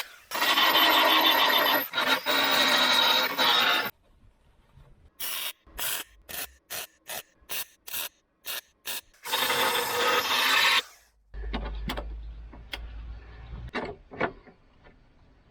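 Power-tool metalwork on car body steel: about four seconds of harsh, rasping noise, then a run of about nine short bursts with quiet gaps between them, then one more longer burst about ten seconds in. A low hum with a few light clicks follows.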